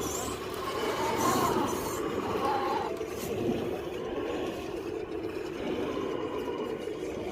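Electric motor and gearbox of an RC rock crawler whirring steadily as it crawls, with a thin higher tone that drops out about three seconds in.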